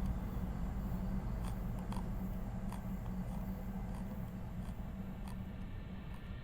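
Light, irregular clicks, roughly one or two a second, over a steady low hum.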